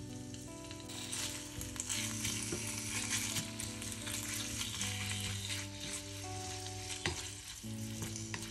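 Diced raw chicken breast sizzling in hot oil in a nonstick frying pan as it is stirred with a wooden spatula, with a couple of sharp clicks of the spatula near the end.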